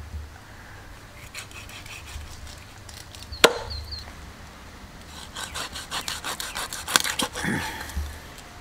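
Cleaver chopping tuna into chunks on a wooden log block: one sharp chop about three and a half seconds in, then a run of lighter knocks and chops later on, with another sharp one near seven seconds.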